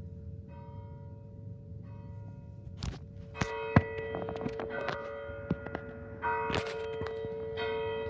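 Church bells ringing, with repeated strikes whose tones hang on between them; the ringing gets louder about three and a half seconds in. A few sharp knocks sound over it.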